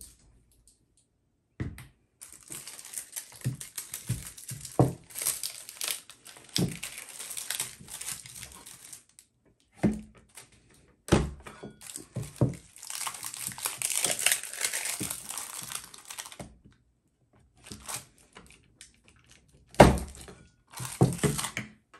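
Plastic wrapping crinkling and tearing as blocks of paraffin wax are unwrapped, in two long stretches of rustling broken by a few sharp knocks.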